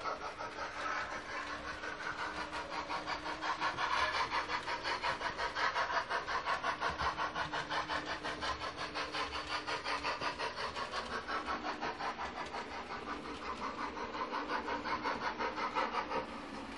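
Sound decoder of a model Gr 741 steam locomotive playing a quick, even beat of steam chuffs through its small speaker, over a steady hum. The chuffing stops just before the end.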